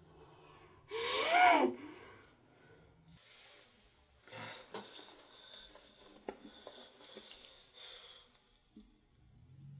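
A man crying: one loud sob, its pitch rising then falling, about a second in, followed by quieter breaths and a few faint clicks.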